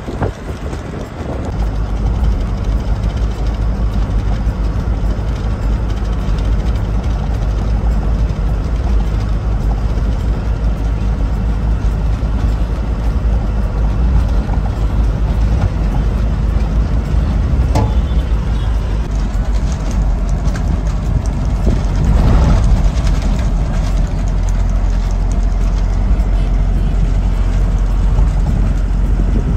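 Steady low rumble of a truck's engine and road noise, heard from inside the cab while driving, swelling briefly about two-thirds through. Wind buffets the microphone for the first second or so.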